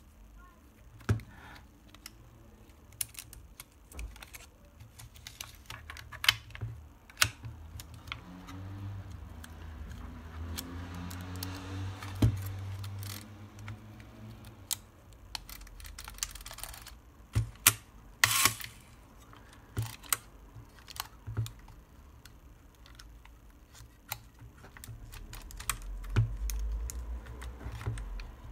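Irregular clicks, taps and rustles of 35 mm film and its cassette being handled and loaded into a Horizon 202 panoramic camera, plastic parts knocking against the camera body.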